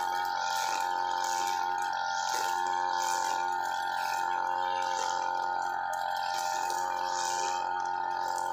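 UM328 two-stroke brush cutter running at steady high speed with a constant whine, its 2.4 mm nylon line swishing through grass in regular sweeps about once a second.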